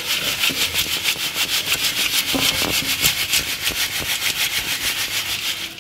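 Old, well-rotted farmyard manure and grit being shaken back and forth in a round wire-mesh sieve over a steel basin, a rasping rattle in a fast, even rhythm of several strokes a second that stops near the end. The sieving separates out pebbles and debris so that only fine soil falls through for potting.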